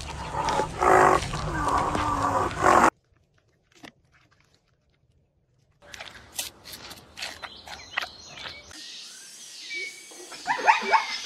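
Rhinoceros vocalising loudly in low calls for about three seconds, then a silent gap. After the gap come soft clicks and crackles from a giant panda chewing. Near the end, a zebra gives a run of short, rising barking calls.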